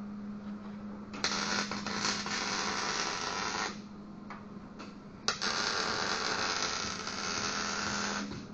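Electric welding arc crackling in two runs of about two and a half and three seconds, the second striking sharply, as a metal sheet is tacked onto a truck bed. A steady low hum runs underneath.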